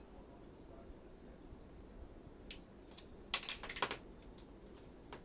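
Small hard clicks from handling a spice jar and measuring spoon while measuring cumin seed: a couple of single clicks, then a quick cluster of clicks about three and a half seconds in.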